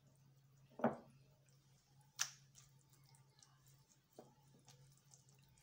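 A metal spoon knocking and scraping against glass three times as a creamy vegetable mixture is spooned from a glass bowl and spread in a glass baking dish, the loudest knock about a second in, over a faint steady hum.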